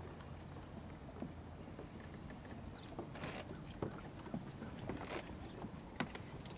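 Faint waterside ambience: a low steady rumble with scattered small knocks and splashes of lapping water, and two brief hissing gusts of wind on the microphone.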